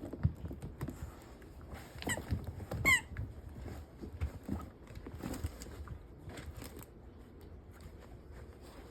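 Rustling and soft knocks of a beagle nosing and pawing about as it hides a bone, with two short squeaks about two and three seconds in.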